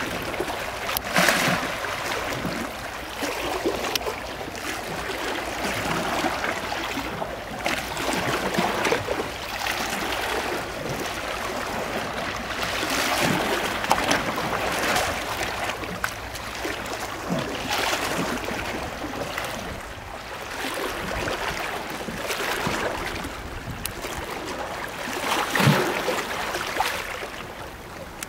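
Seawater washing and splashing among concrete tetrapod breakwater blocks, in irregular surges every second or two, with a louder surge near the end.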